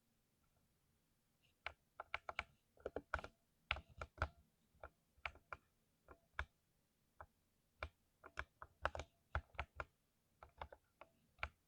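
Typing on a mechanical keyboard with lubricated switches: uneven keystroke clicks that start about a second and a half in and run in quick, irregular bursts.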